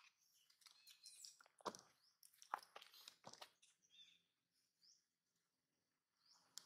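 Near silence, broken by a few soft clicks in the first half and a couple of short, faint high chirps later on.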